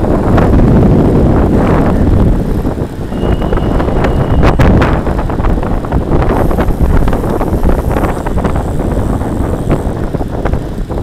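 Heavy wind buffeting on the microphone of a camera mounted on a road bike moving at speed in a group of cyclists, with scattered sharp knocks and clicks from the bike and road surface.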